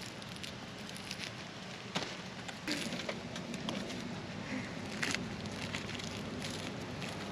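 Serrated knife cutting and prying the charred, brittle skin off a fire-roasted breadfruit: irregular sharp clicks and short scrapes, with a faint low steady hum underneath.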